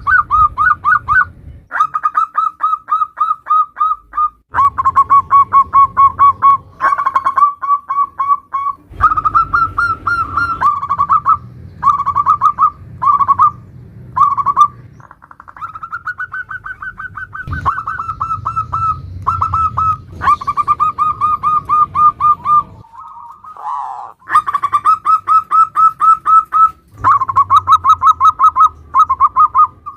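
Zebra dove (perkutut) calling in the rapid 'nutut' style: fast runs of short, clipped coo notes repeated many times a second, in phrases of one to three seconds with brief breaks between.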